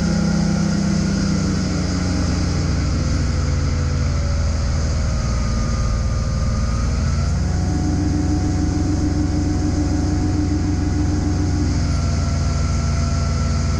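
Procharger-supercharged 572 big-block V8 in a 2004 Checkmate Convincor 300 running at part throttle as the boat slows from about 57 to under 40 mph. The engine note eases down over the first few seconds, steps up briefly about seven seconds in, and drops again near the end.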